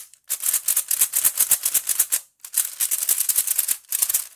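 Cyclone Boys Feiku 3x3 speed cube being turned fast by hand: rapid, loud clacking of its plastic layers, in two long runs with a short break between and a few more turns near the end. The cube is very loose, too loose to corner cut, which makes it so loud and clacky.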